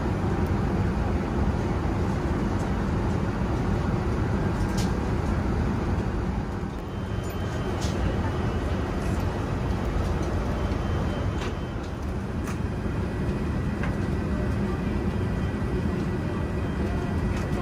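Steady cabin noise of an Airbus A380 at cruise: airflow and engine sound with a deep, even rush. A few short clicks stand out, around five seconds in and again between about eight and thirteen seconds.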